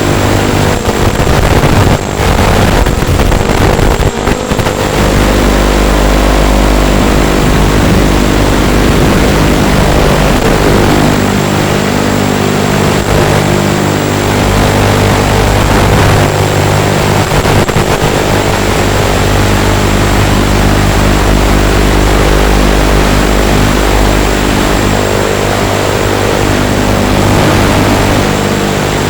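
Eachine Racer 250 FPV racing quadcopter's brushless motors and propellers running in flight: a loud, continuous multi-tone drone whose pitch shifts now and then with throttle, with brief dips in level a couple of times near the start.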